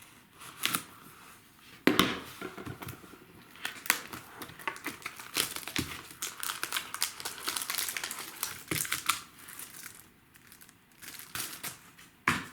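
Plastic wrapping crinkling and tearing as a sealed box of trading cards is unwrapped and opened, with a couple of sharp snaps along the way.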